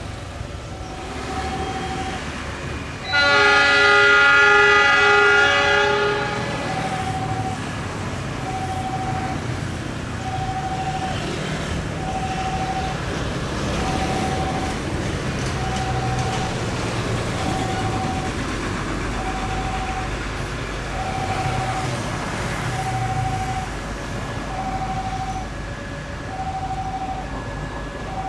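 A diesel locomotive's horn sounds once, a loud chord held for about three seconds. Under it a diesel locomotive engine rumbles at idle, while a short electronic warning beep repeats about every two seconds.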